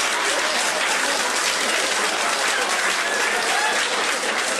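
Live audience applauding steadily, with a few voices in the crowd mixed in.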